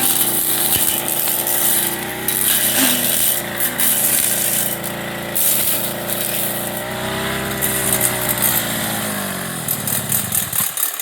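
Backpack brush cutter's small 30cc engine running at high throttle, with bursts of hiss as the blade cuts through weeds. About seven seconds in the engine revs up briefly, then the throttle is released and it winds down toward idle near the end.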